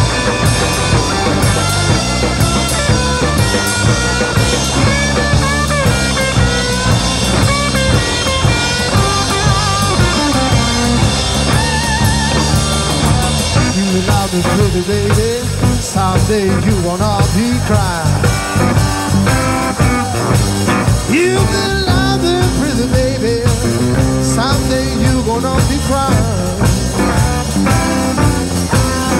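Live blues-rock band playing loud: electric guitar leads with string bends and vibrato over bass guitar and drums.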